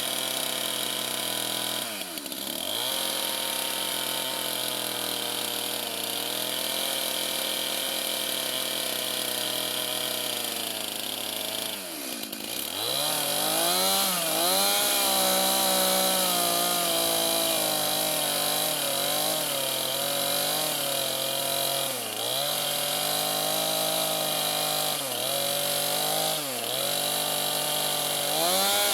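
Two-stroke chainsaw running near full throttle while cutting along a scribe line in a log. The engine speed drops sharply and climbs back about two seconds in and again after ten seconds. It then runs higher and wavers under load, with a few shorter dips near the end.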